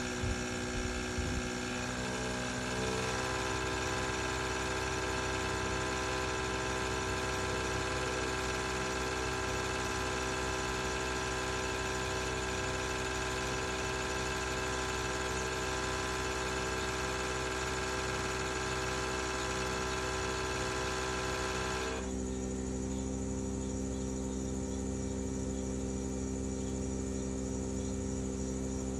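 Bosch BOVB-36HDN1-M20G heat pump running with a steady grinding buzz made of many tones, a noise the owner says is recent on a unit less than a year old and fears is not normal. About 22 seconds in the grinding stops suddenly, leaving a plainer, lower hum.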